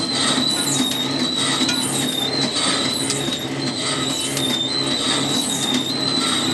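Mini flow-wrap candy packing machine running continuously: a steady high-pitched whine that rises and dips in a regular cycle about once a second over a low hum and the ticking of its mechanism.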